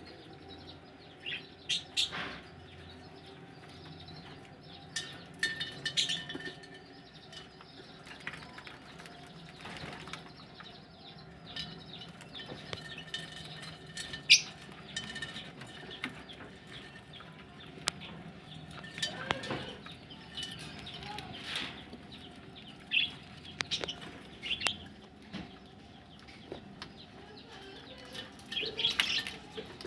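Budgerigars chirping now and then, in short calls, with wing flutters and scattered sharp clicks.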